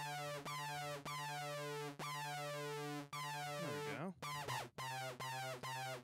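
Modal Cobalt8X synthesizer playing a string of repeated notes on a hard-synced sawtooth. A strong mod envelope sweeps the synced oscillator on every note, giving a robotic vowel-like sound. A little past the middle the pitch glides down and back up, then the notes come slightly lower and quicker.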